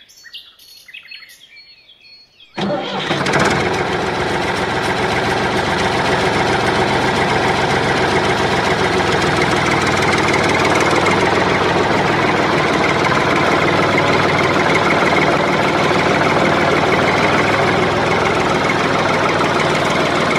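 Model engine-driven mini water pump running steadily, a loud even mechanical drone that cuts in sharply about two and a half seconds in and stops abruptly at the end. Before it, faint bird chirps.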